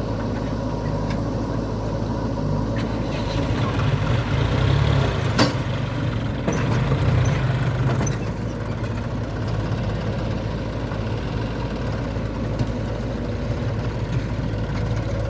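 Diesel engine of a backhoe loader or tractor running steadily, swelling louder twice in the middle, with one sharp knock about five seconds in.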